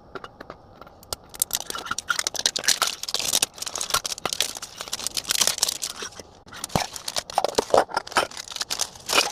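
Plastic packaging and foil booster packs being handled as a Pokémon Ultra Ball is opened and its packs taken out. Crinkling, tearing and clicking start about a second in and run on with a short lull.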